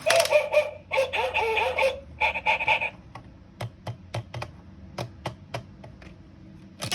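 Electronic shape sorter toy playing a crowing, clucking animal sound effect in four bursts over about three seconds. Then come about a dozen sharp plastic clicks and clacks as the pieces are handled.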